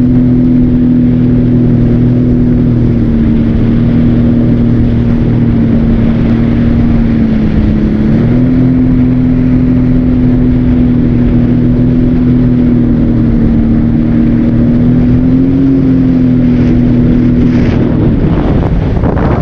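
Jet ski engine running steadily at speed, heard from aboard. The engine note dips briefly about eight seconds in, then drops away near the end.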